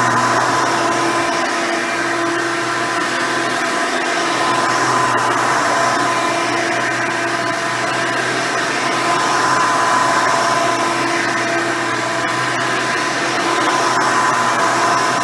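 Hoover Elite 350 upright vacuum, fitted with a 7-amp motor and seven-blade fan, running steadily while vacuuming. Its whine swells and eases slightly every few seconds.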